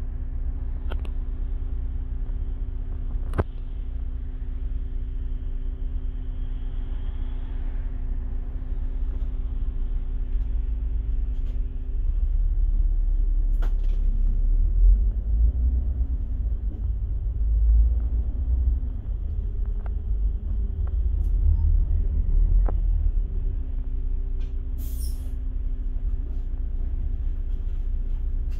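Double-decker bus heard from inside on the upper deck: the engine idles with a steady hum and low rumble. About 12 s in the bus pulls forward, the engine pitch rising and falling with a louder rumble, then settles back to a steady idle about 23 s in. A short high hiss follows near 25 s.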